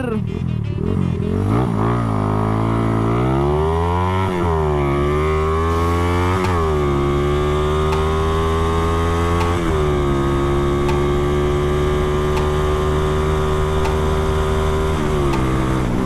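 Modified Honda CB single-cylinder four-stroke motorcycle engine, a bored and stroked build (70 mm stroke, 65 mm piston), accelerating hard from a standing start: the revs climb and drop at three gear changes about 4, 6.5 and 9.5 seconds in, then hold steady and high before easing off near the end.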